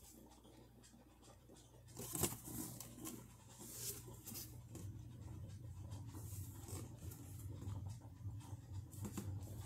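Faint handling noises, scattered clicks and rustles, over a steady low hum.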